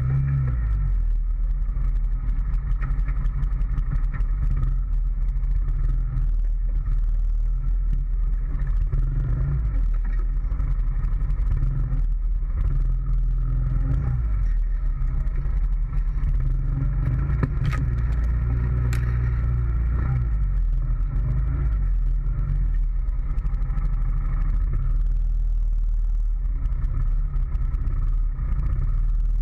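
2013 Honda Foreman ATV's single-cylinder four-stroke engine running steadily under way, picked up by a camera mounted on the front rack. A couple of sharp clicks come about two-thirds of the way through.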